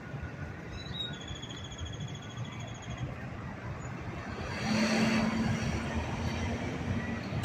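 Street traffic. A high squeal lasts about two seconds, then a heavy vehicle passes close by and grows louder about halfway through, with a low steady hum.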